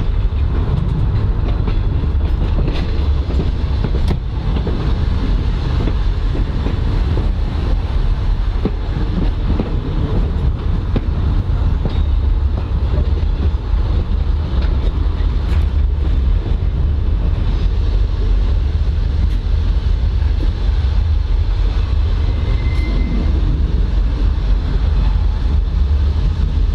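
A 1920s NSWGR CPH 'Tin Hare' diesel railmotor running along the track, heard from on board: a steady low rumble of engine and wheels on the rails, with a few sharp clicks scattered through it.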